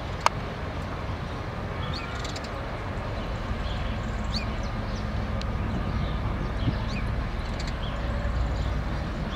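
Low, steady rumble of a diesel locomotive at a distance, with a few short bird chirps over it. One sharp click just after the start.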